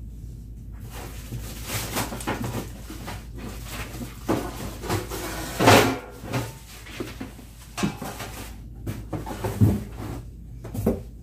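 Unpacking noise: cardboard box flaps and plastic wrapping rustling, with irregular light knocks as plastic mesh baskets are lifted out and set down. The loudest rustle comes about six seconds in.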